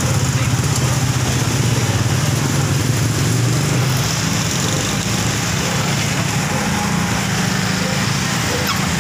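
Engines of slow road traffic running steadily, with small motorcycle engines close by; a low drone that eases a little about halfway through.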